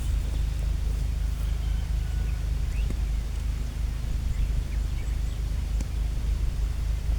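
Outdoor ambience: a steady low rumble with a few faint, short bird chirps in the first half.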